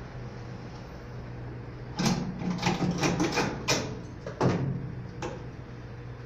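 A run of sharp metallic clatters and knocks over about three seconds, from tools and metal fittings being handled inside an electrical distribution panel, over a steady low hum.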